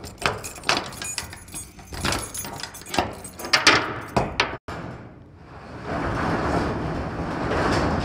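A padlock is worked open and pulled from the steel latch bar of a roll-up door, a run of sharp metal clicks and rattles. From about six seconds in, the corrugated steel roll-up door rattles steadily as it is rolled up, getting louder near the end.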